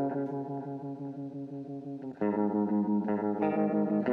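Background music with guitar: sustained chords drop to a quieter passage with a quick, even pulse, then loud chords come back in a little over two seconds in.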